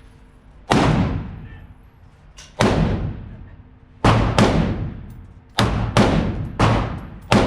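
Eight gunshots fired in an uneven string, several in quick pairs, each a sharp crack followed by about a second of echo.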